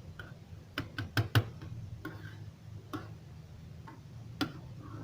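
Light clicks and knocks of a kitchen utensil against cookware: a quick run of four about a second in, then single clicks near three and four and a half seconds, over a low steady room hum.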